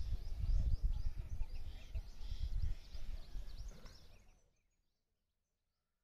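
Wind buffeting the microphone as an irregular low rumble, with birds chirping high over it; everything cuts off about four and a half seconds in.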